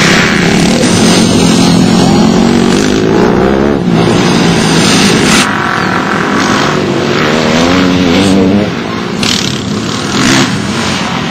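Pit bike engines revving up and down as riders pass, the pitch climbing and dropping with throttle and gear changes. The engines are a little quieter near the end.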